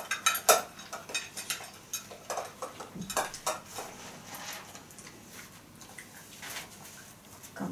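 Whippet puppy eating from a metal food bowl: quick, irregular clinks and scrapes of the bowl as he works at it. The clinking thins out about halfway through, as he leaves the bowl.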